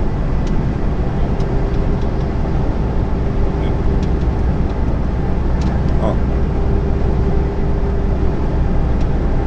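Lorry cab noise at motorway speed: the engine's steady low drone with road and wind noise and a constant hum, and a few light ticks of cab rattle.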